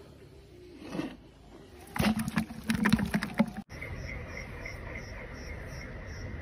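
A loud spell of crackling clicks and knocks for about a second and a half, from about two seconds in. After a sharp break, insects chirp steadily in regular pulses, about three a second.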